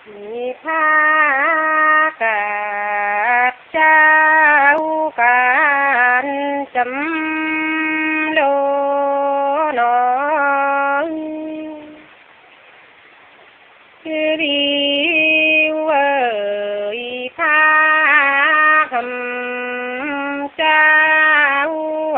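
A single voice singing a Nùng folk song with no accompaniment, long held notes bending and ornamented, with a pause of about two seconds about halfway through.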